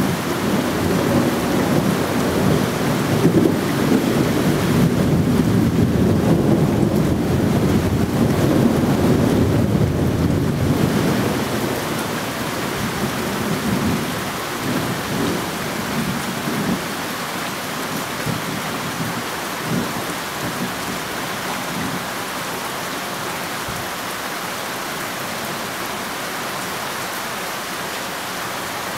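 Long rolling thunder rumble over steady rain; the rumble dies away after about eleven to fifteen seconds, leaving only the even hiss of rain.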